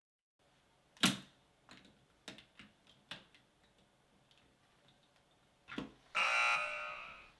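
Sharp plastic clicks and taps as a LEGO train is handled against a LEGO track, several in the first few seconds. Near the end comes a whirring about a second long that fades off, then one more click.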